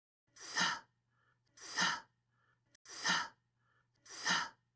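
A voice making the voiceless 'th' sound, as in 'think', four times: short, soft, airy hisses about a second and a quarter apart.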